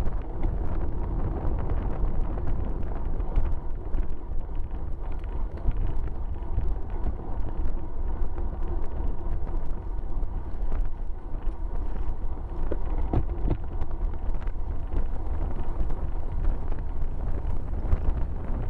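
Wind rushing over a bike-mounted camera's microphone at racing speed, with the hiss of bicycle tyres on a wet road and frequent small rattling clicks.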